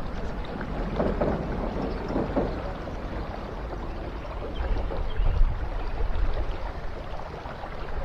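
River water moving and sloshing around a wader's legs in shallow water, with a low rumble and a few brief rustles about one to two seconds in.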